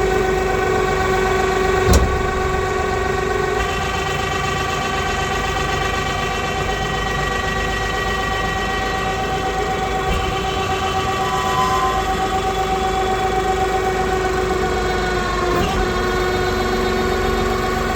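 Straw baling press machine running steadily: a droning hum with several steady tones on top, and one sharp knock about two seconds in.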